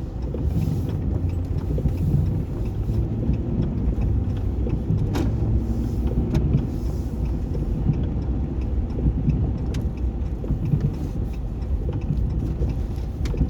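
Steady low rumble of a car driving, heard from inside the cabin, with a couple of faint clicks.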